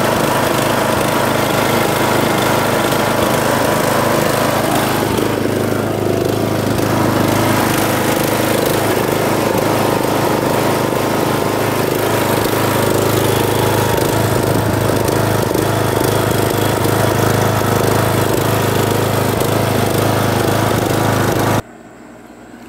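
Craftsman riding lawn mower engine running steadily, started on its new battery, then stopping suddenly near the end.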